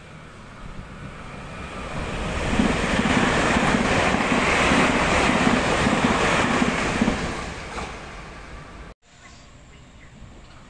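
A Taiwan Railway train passing at speed: a rushing noise builds, holds for a few seconds with a regular low beat about twice a second as the wheels go by, then fades. The sound cuts off abruptly near the end and returns much quieter.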